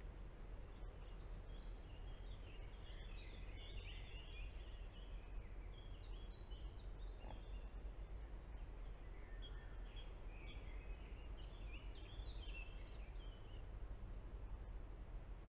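Small woodland birds singing faintly, quick runs of short high notes in two spells, over a steady low rumble of the trail camera's own noise.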